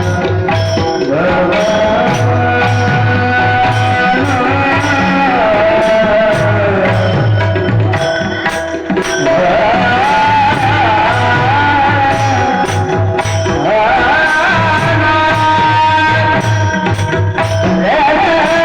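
Devotional kirtan singing: a male voice sings a traditional kirtan tune in long, gliding phrases over a steady percussion beat, with a short break in the singing about nine seconds in.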